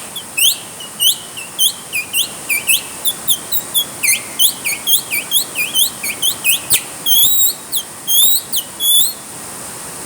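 A bird chirping over and over in short, quickly rising notes, about three a second, over a steady hiss of rain. The chirping stops near the end.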